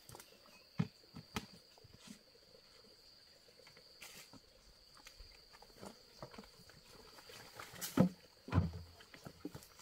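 Scattered knocks and rustles of a plastic backpack sprayer being handled and swung up onto the back, with two heavier thumps close together near the end, the loudest sounds.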